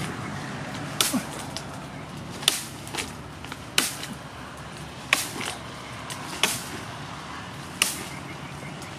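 Short knife chopping into a tree branch overhead: six sharp chops, about one every 1.3 seconds, with fainter knocks between them. The blade barely gets into the branch, showing a short knife is hard to cut branches with.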